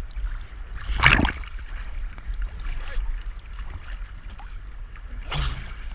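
Seawater sloshing and splashing around swimmers, over a low rumble on the microphone, with two louder splashes, one about a second in and one near the end.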